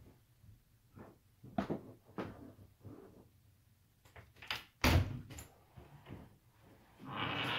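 Scattered knocks in the room, with one louder thump about five seconds in, then a steady rushing noise starting near the end.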